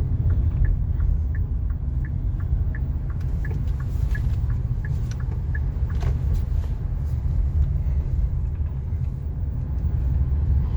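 Steady low rumble of a Kia Carens heard from inside the cabin as it drives, with a light regular ticking about three times a second that stops about halfway through.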